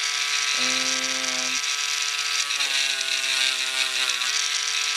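Handheld rotary motor tool with a felt polishing wheel running at high speed with a steady whine. Its pitch sags twice as a bar of polish is pressed against the spinning felt to load it, then recovers.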